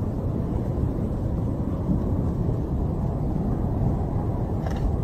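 Strong storm wind from a tornado rumbling and buffeting the microphone as a steady low roar.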